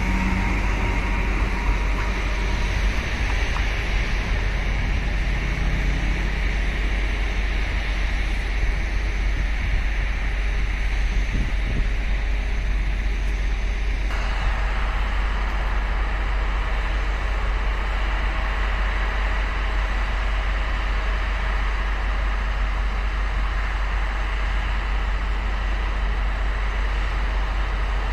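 Steady low rumble and hiss of vehicle noise, with the running noise of a Taiwan Railway E400-series electric locomotive fading as it pulls away in the first few seconds. The noise changes abruptly about halfway through.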